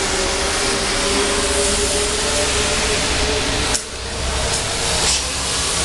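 Steady mechanical running noise with a faint hum, like a machine or engine left running. About four seconds in there is a sharp click, and the noise dips briefly.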